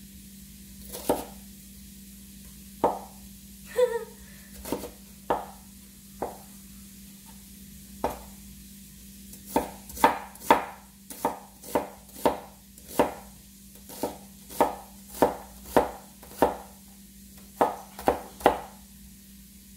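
Kitchen knife chopping an onion: a few scattered single cuts at first, then from about ten seconds in a steady run of about fifteen chops at roughly one and a half a second, stopping shortly before the end.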